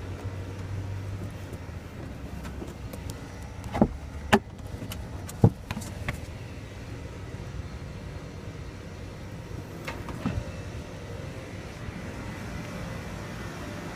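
Sharp knocks and clunks from handling a Nissan Murano's cargo floor panel, lifted to show the spare tyre, over a steady low hum. The loudest three come between about four and five and a half seconds in, with two weaker ones around ten seconds.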